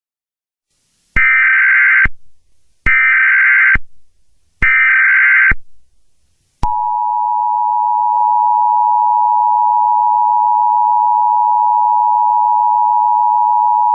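Emergency Alert System alert tones: three short, equal bursts of digital SAME header data, then the steady two-tone EAS attention signal starting about halfway through and holding without change.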